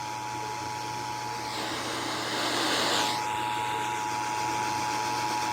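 Emergency Alert System two-tone attention signal holding steady, received over the air. In the middle a swell of hiss drowns the tones for about a second and a half, and a low steady hum runs underneath.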